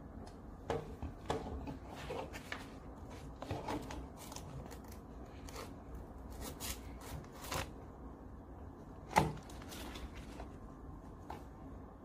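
Irregular clicks and knocks of parts of a round-bottle labeling machine being handled and adjusted during setup, over a low steady hum; one sharper knock about nine seconds in is the loudest.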